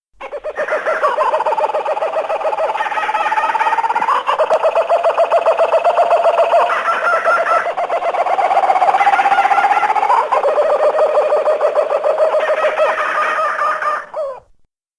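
Animal chattering sound effect: a fast, pulsing chatter with a sliding pitch, running on for about fourteen seconds. The pitch climbs and breaks off twice, and the sound stops shortly before the end.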